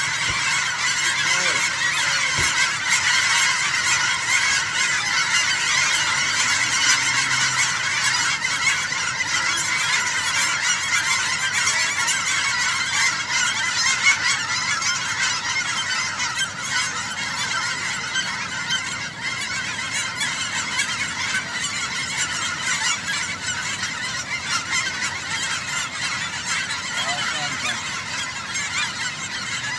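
A large flock of geese honking all at once, a dense, continuous din of overlapping calls as the birds circle and land.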